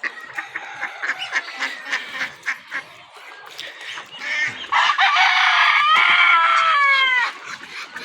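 Desi rooster crowing once, loudly, about halfway in, the crow lasting a couple of seconds and falling in pitch at the end. Before it there are scattered short calls from the farm birds.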